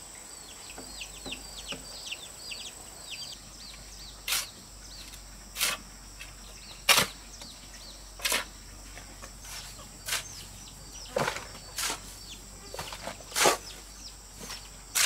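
A series of sharp knocks, about one every second and a half, of hard material being struck. In the first three seconds a bird gives many quick chirps that fall in pitch.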